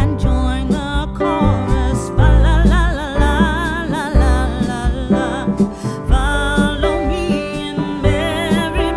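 Background music: a song with a wavering, vibrato-laden lead voice over a steady low beat and plucked guitar.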